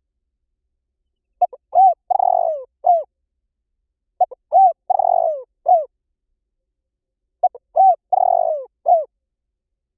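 Spotted dove cooing: three repeated call phrases about three seconds apart, each a few short notes around one longer, falling coo. The calls are played back as a lure call to draw spotted doves in.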